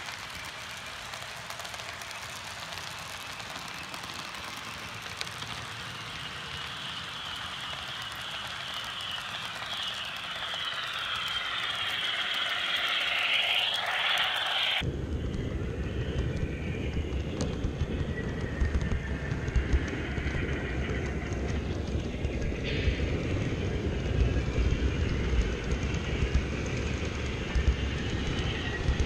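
HO scale model freight cars rolling on track, a light steady clatter. About halfway through it changes to a louder, lower rumble with small clicks, heard from on board the train at track level.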